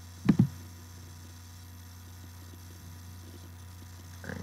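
Two sharp computer mouse clicks in quick succession about a third of a second in, over a steady electrical mains hum on the recording.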